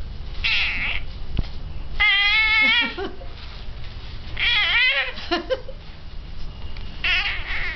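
Infant's high-pitched playful squeals and coos, four of them, the longest a wavering cry about two seconds in.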